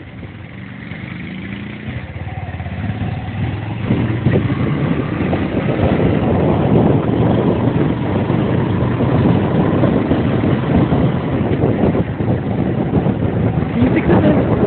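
A vehicle engine picking up speed, rising in pitch over the first few seconds. It then runs on at speed under loud, rumbling wind buffeting on the microphone.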